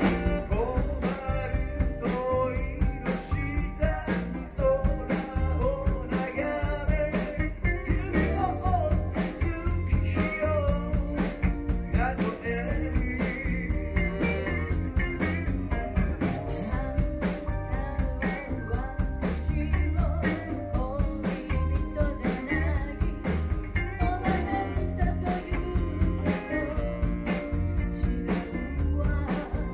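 Rock-style music with a sung vocal over guitar and drums, with a steady, even beat.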